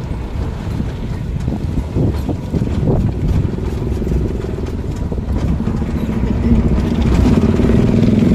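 Vehicle driving along a village road: a steady low engine and road rumble with some wind, a few light knocks a couple of seconds in, and another engine's hum growing louder near the end as traffic passes close by.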